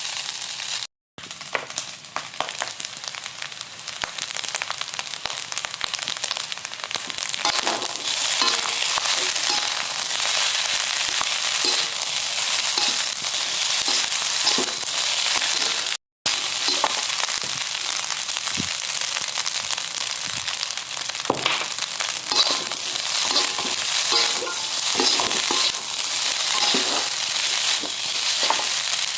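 Fried rice sizzling in a hot pan as it is stir-fried, with the scrape and clicks of a spatula stirring it. The sound breaks off briefly twice.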